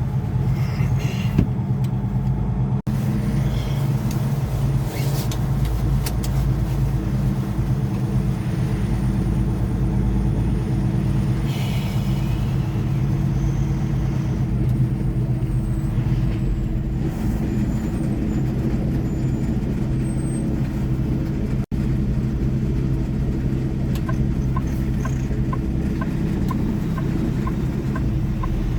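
Semi-truck diesel engine running steadily under way, heard from inside the cab as a low drone. There is a short hiss about twelve seconds in, and a light ticking about twice a second near the end.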